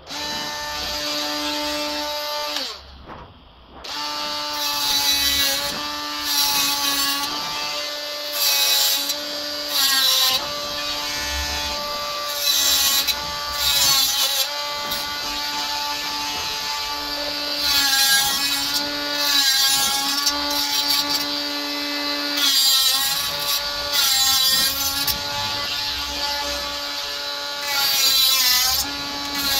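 Small cordless drill running almost without a break. Its whine dips slightly in pitch when the bit bites, and bursts of cutting noise come every second or two as it works the mesh grille. It stops briefly about three seconds in.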